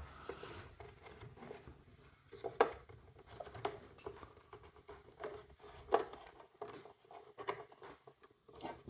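Hands working the wire-feed mechanism of a welder: scattered small clicks, taps and scraping of metal and plastic parts, with a few sharper clicks.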